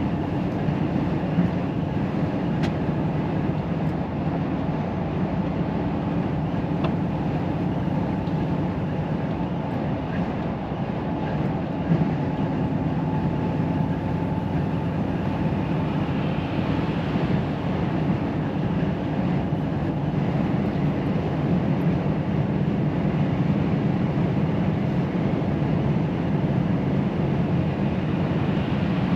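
Volvo FH semi-truck cruising at road speed, heard from inside the cab: a steady engine drone with tyre and road noise.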